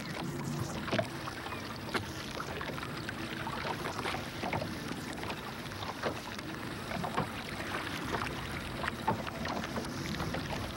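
Small fishing boat at sea: an engine running steadily at low speed, with water washing against the hull and scattered short knocks and splashes from the hauling.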